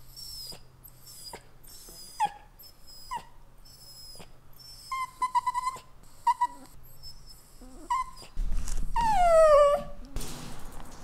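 Italian greyhound whining: a run of short, high-pitched whimpers, roughly one a second, then a longer, louder whine falling in pitch near the end.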